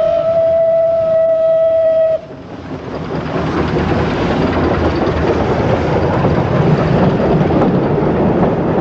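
A steam locomotive's whistle holds one steady note, then cuts off about two seconds in. The double-headed steam train, Südbahn class 29 No. 671 with 56.3115, then passes close with a loud, even rush of noise that builds and holds.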